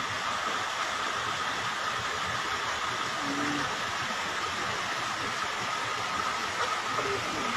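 Steady rush of stream water running over rocks, with a thin, even high tone held through it.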